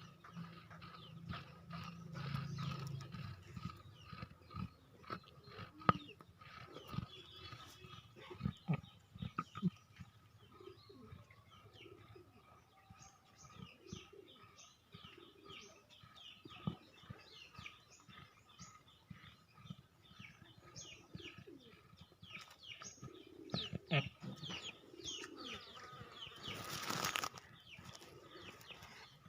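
Small birds chirping again and again, each call a short falling chirp, with a few knocks and low sounds in between. A short harsh noisy burst comes near the end.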